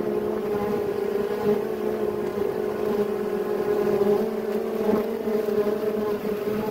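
Honeybee swarm buzzing: a steady hum of many wings close by, wavering slightly in pitch, as the swarm flies around and settles into a cluster.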